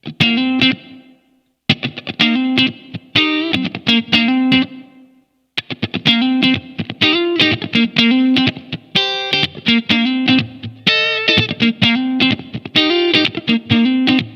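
SQOE SEST960 HSS electric guitar played through an amplifier: a picked riff of short, quick notes in a steady rhythm. It breaks off briefly about a second in and again about five seconds in.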